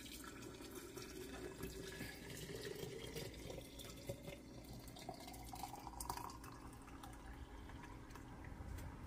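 Boiling water poured in a steady stream from a plastic pitcher into a glass canning jar of berries and sugar, filling it.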